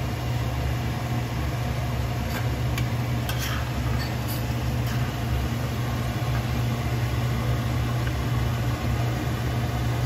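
Minced shallots frying in a pan of oil, still pale and bubbling, an even sizzle over a steady low hum. A few light clicks of the metal spatula against the pan come in the first half.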